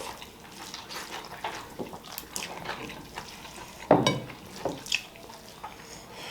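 Wet eating sounds as rice and fish curry are mixed and eaten, with many small irregular clicks and smacks. A sharper knock, the loudest sound, comes about four seconds in.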